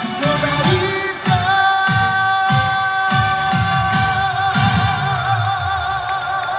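Male trot singer holding one long note, with vibrato near its end, over live-amplified band music with a steady bass-drum beat. It is the closing note of the song.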